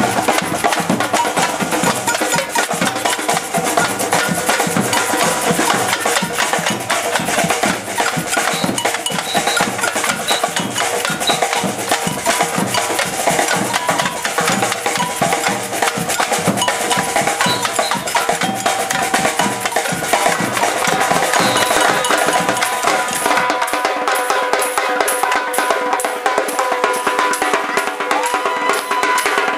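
Brazilian batucada percussion troupe playing a steady drum groove, with deep bass drums under the higher drums. About three-quarters of the way through, the bass drums stop and the higher drums carry on alone.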